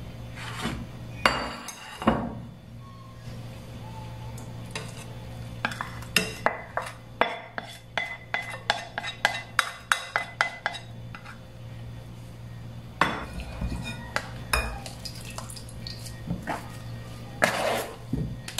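A plastic rice paddle scraping and knocking against a glass bowl and a stainless-steel mesh strainer while grated potato is transferred and pressed. A run of quick knocks, about three a second, comes in the middle, with single knocks before and after, over a steady low hum.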